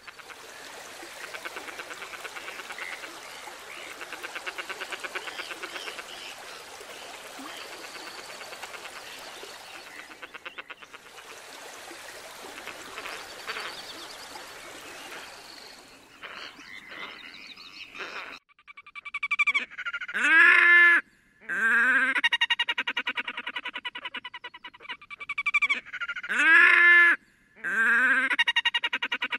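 Red-necked grebes calling: a dense, continuous chatter in the first half, then two loud braying wails about six seconds apart, with fast rattling trills between them. It is a pair's courtship duet.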